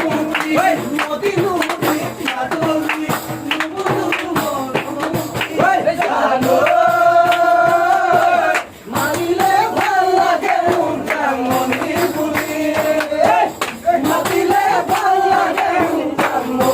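Music: a song with a singing voice carrying the melody over a steady percussion beat.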